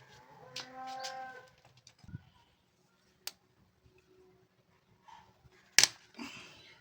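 A single steady animal call lasting about a second, then a sharp click and, near the end, a louder sharp knock followed by a brief rustle.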